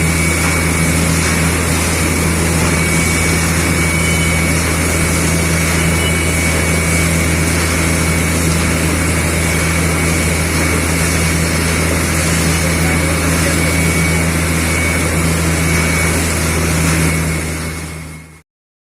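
Borewell drilling machine running: a loud, steady engine drone with a thin high whine over it, fading out near the end.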